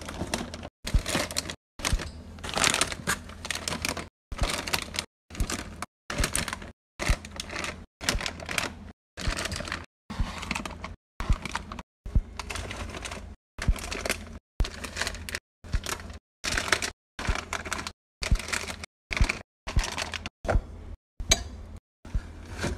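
Plastic snack bags crinkling and crackling as they are handled and set onto a wire rack shelf, heard in short snippets of about a second each, cut apart by brief silences.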